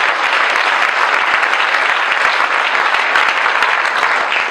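Audience applauding, a loud, dense patter of many hands clapping.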